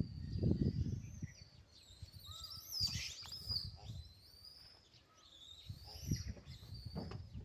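A series of high, gliding chirping calls from animals, thickest about three seconds in, over low rumbling noise.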